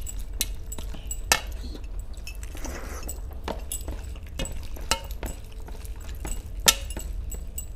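Metal rings and bracelets on a hand clinking against a steel plate as the hand mixes rice and fish curry, in irregular sharp clinks, two of them louder, with a brief soft wet squish of food. A steady low hum runs underneath.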